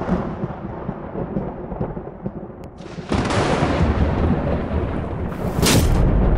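Thunder sound effect: a rumble fading away, then a louder swell of thunder about three seconds in and a sharp crack near the end, giving way to a deep low rumble.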